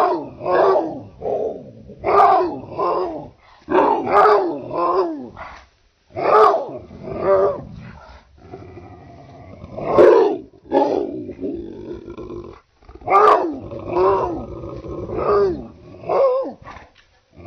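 Deep, big-dog barking in clusters of two to four barks, with lower growling between some of the clusters.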